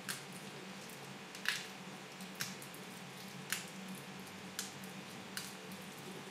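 Clear slime packed with Orbeez water beads being squeezed and stretched by hand, giving short wet squishing pops about six times, the loudest about a second and a half in, over a steady low hum.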